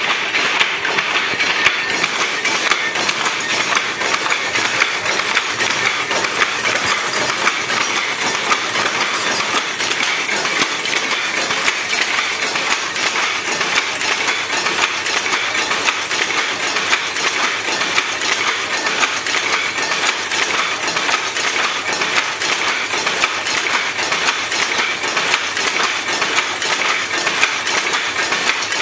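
Power loom running: a steady, fast, continuous mechanical clatter with metallic clinks.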